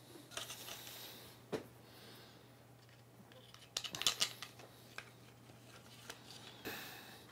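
3D-printed PLA/PHA plastic parts being handled: scattered light clicks and rustles, with a sharper cluster of clicks about four seconds in.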